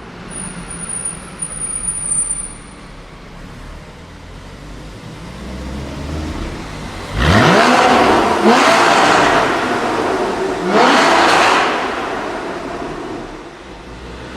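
A high-performance supercar engine under hard acceleration. It comes in suddenly and loud, and its pitch climbs in three rising pulls with quick gear shifts between them, then fades away.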